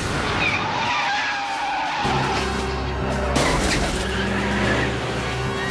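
Car tyres squealing in a wavering pitch as a big sedan skids through a hard turn, then its engine comes in loud and steady about two seconds in, with another short squeal a second or so later.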